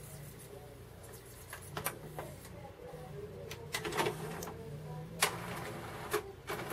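Sony MHC-ZX30AV five-disc CD changer mechanism working after a front-panel button press: a faint motor hum with a string of clicks and clunks from the tray drive, busier toward the end. It is running on makeshift elastic-band belts in place of the bad original belts, and the tray now ejects.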